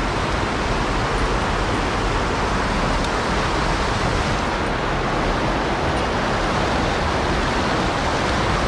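Rushing mountain stream tumbling over rocks in small cascades: a steady rush of white water.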